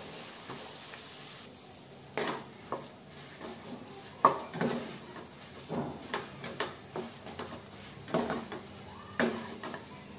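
Wooden spatula scraping and knocking against a nonstick frying pan in irregular strokes, every second or so, while stirring and frying a thick ground green-pea paste. A faint sizzle runs underneath.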